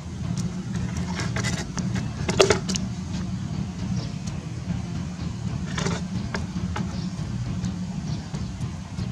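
A few scrapes and knocks as a monkey turns over and lifts a dried crocodile head on sandy ground, the loudest about two and a half seconds in, over a steady low hum.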